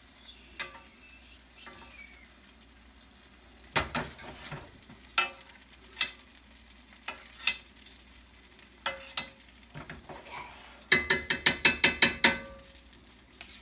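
Halibut fillets sizzling faintly in a stainless steel skillet while a metal spoon bastes them, clinking against the pan every second or so. About eleven seconds in comes a quick run of about ten sharp metallic clicks.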